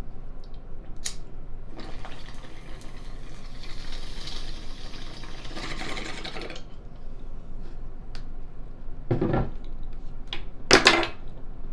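Water bubbling steadily through a bong as a hit is drawn, for about five seconds, after a click about a second in. Two short loud sounds follow near the end.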